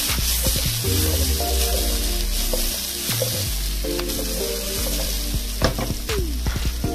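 Diced onion and garlic sizzling in oil in a pan as they are stirred, with scattered sharp ticks from the utensil against the pan. Background music plays under it.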